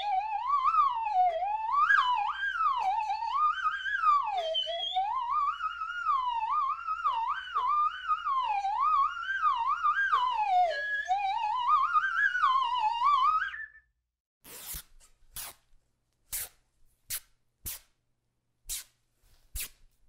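A wavering electronic tone like a theremin, sliding up and down in pitch with a wobble, used as a cartoon sound effect; it stops about fourteen seconds in. Then comes a string of sharp clicks, a little more than one a second.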